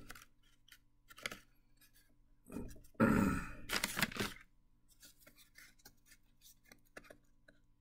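Stiff cardboard Fleer baseball cards handled and slid against one another, with a louder scraping rustle about three to four seconds in and a few light clicks of card edges after it.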